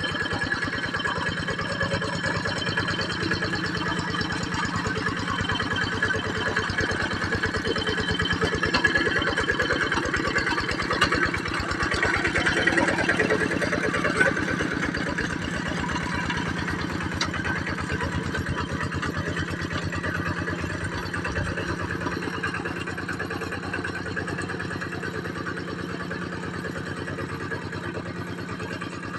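Kubota diesel tractor engine running steadily under work, its firing beat even throughout. It grows louder for a few seconds in the middle, then eases slightly toward the end.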